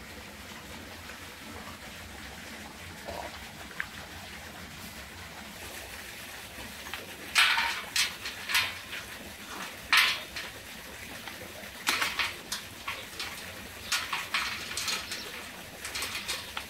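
Metal clinks and knocks of clamps being fastened around the rim of a copper rose-water still's lid, sealing it for distilling. The sharp clanks start about seven seconds in and come irregularly, some in quick pairs, over a faint steady background.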